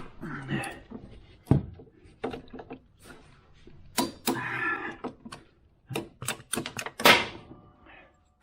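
Hand tools and sockets being handled: a run of sharp metallic clinks and knocks, with a couple of longer rattling scrapes in the middle and near the end.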